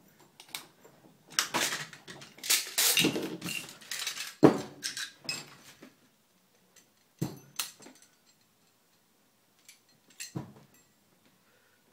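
AR-15 rifle being field stripped by hand: metal parts scraping, sliding and clicking as pins are pushed and the receivers, bolt carrier and charging handle come apart. There is a loud sharp metallic clack about four and a half seconds in, then a few scattered single clicks.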